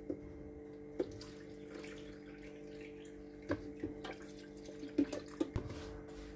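Water being poured into a blender jar of soaked coconut, with a few light knocks of the jar and utensils, over a steady low hum.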